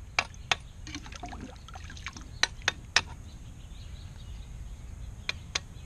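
Water sloshing in a plastic tub as a freshly cast aluminum piece is swished about in it with tongs to cool it. About seven sharp clicks of metal knocking on metal are scattered through the sloshing.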